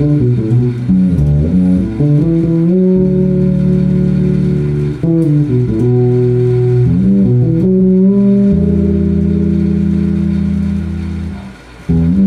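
Elegee Alab five-string fretless P/J electric bass played fingerstyle through a TC Electronic BH250 bass amp: short runs of notes alternate with long sustained notes. Near the end a held note fades away and a new note is plucked.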